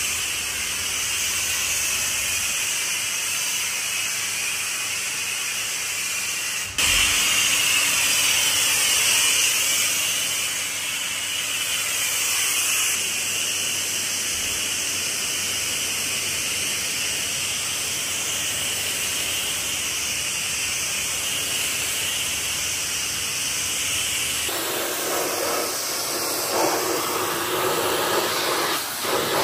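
High-pressure washer lance spraying water onto a truck, a steady hiss. About a quarter in the sound breaks off briefly and comes back slightly louder. About three-quarters in, as the jet hits a wheel rim, it turns fuller and rougher.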